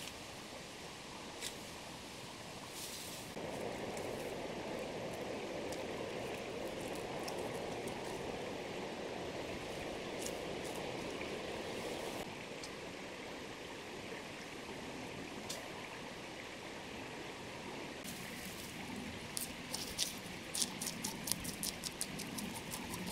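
Steady rush of a flowing river. A louder stretch runs from a few seconds in to about halfway, and near the end come quick, sharp scraping clicks, about four a second.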